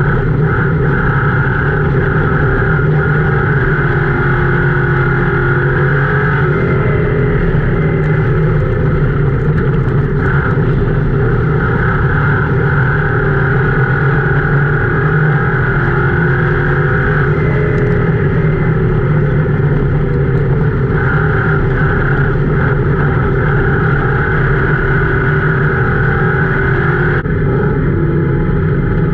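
Ford Crown Victoria's V8 race engine running hard under racing load, heard from inside the car's cockpit, its note rising and falling a little as the throttle changes through the laps.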